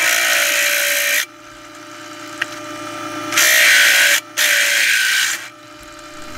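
Drill bit cutting through 3 mm steel angle: a loud grinding cut for about the first second, then the drill spinning free, then a second two-second cut starting about three and a half seconds in, broken by a brief pause, before the drill spins free again.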